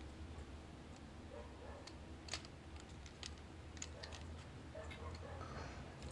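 Faint, scattered clicks of a Takara Masterpiece Tracks Transformers figure's plastic joints and parts as its arms are moved into position by hand, over a low steady hum.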